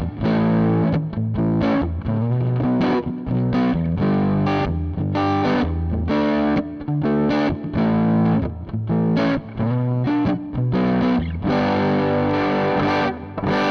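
Electric guitar played through a Zoom G1 Four multi-effects processor on its FD B-MAN (Fender Bassman) amp model, set for a lightly overdriven crunch tone: strummed chords, mostly short stabs with brief gaps between them, with a longer ringing chord near the end.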